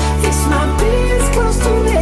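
Background pop song with a sung melody over a steady bass line.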